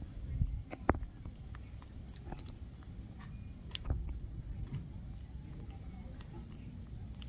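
A monkey eating pieces of roti: scattered small clicks and smacks of chewing, the sharpest about a second in and another near four seconds.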